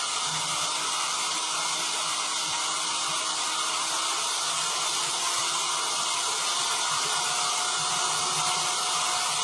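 Electric drill turning the crankshaft of a 3D-printed plastic V8 engine model at steady speed: a continuous, even whir of the drill motor and the spinning plastic crank and connecting rods.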